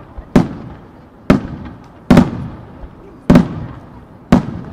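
Aerial firework shells bursting in a starmine sequence. Five sharp bangs come about a second apart, each followed by a rolling echo that fades before the next.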